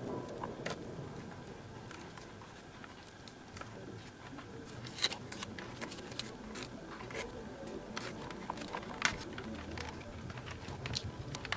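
Masking tape being peeled off a spray-painted plastic airsoft pistol: faint, irregular crackling and small ticks as the tape lifts, with a few sharper ticks partway through.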